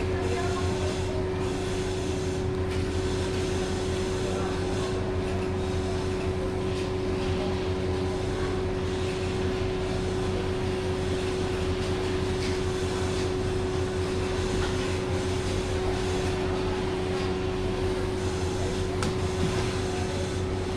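Automatic template (pattern) sewing machine running steadily: a constant machine hum with a steady whine held throughout.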